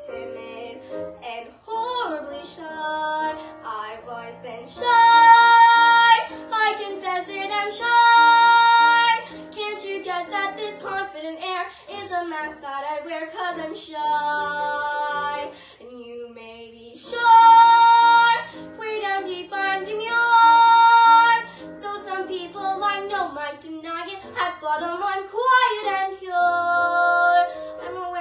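A girl singing a musical-theatre song solo, holding several long high notes of a second or more.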